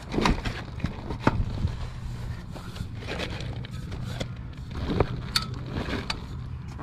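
Scattered crunches, clicks and scrapes of an above-ground frame pool's metal legs, straps and gravel edging being handled, with sharper knocks just after the start, about a second in and about five seconds in.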